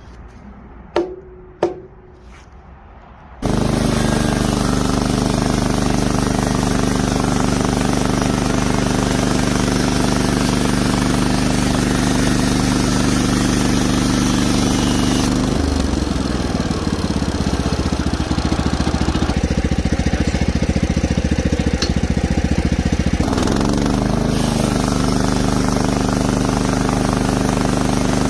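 Two short clicks, then about three seconds in the sawmill's engine comes in loud and steady. About halfway through its note drops and wavers for several seconds before returning to the earlier steady pitch, as the mill works through the larch.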